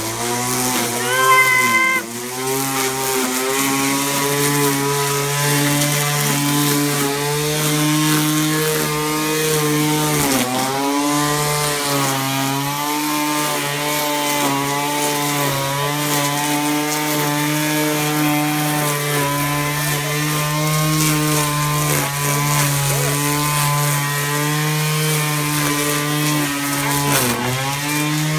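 Poulan Pro 25cc two-stroke string trimmer running at high speed while cutting weeds. The engine note is steady and briefly sags in pitch twice, about ten seconds in and near the end. A short high-pitched whistle comes about a second in.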